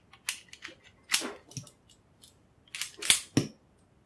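CZ Model Z .25 pocket pistol being function-checked after reassembly: the slide is worked by hand, giving a string of sharp metallic clicks and clacks, roughly one every half second, some sharper and some duller.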